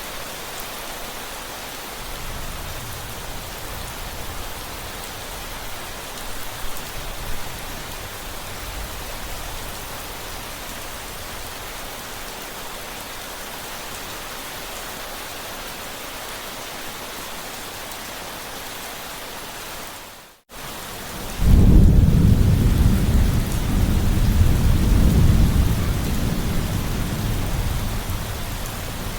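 Steady heavy rain hissing, with a faint distant rumble of thunder early on its way through. About two-thirds of the way in the sound drops out for a moment, then a loud deep thunder rumble starts and rolls on, slowly fading toward the end.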